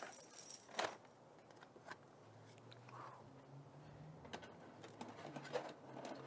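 Thin steel panels of a flat-pack fire pit clinking and rattling as they are unfolded and fitted together. The sharpest clinks, with a brief ring, come in the first second, then a few lighter taps, over a faint low hum.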